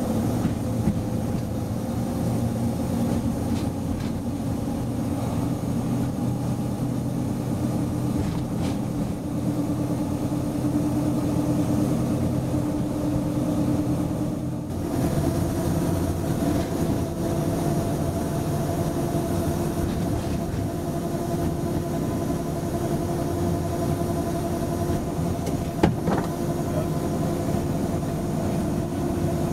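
Heritage diesel locomotive's engine running steadily under way, with the train moving along the track. About halfway through, the engine note steps up to a higher pitch, and there is a single sharp click near the end.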